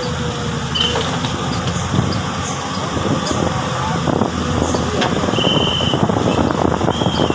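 Diesel engine of a Komatsu PC200 hydraulic excavator running under load. Rattling knocks thicken from about the middle on, with a few short high squeaks.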